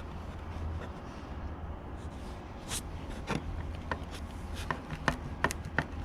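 A series of sharp clicks and knocks, about eight of them over the last three seconds, over a steady low hum.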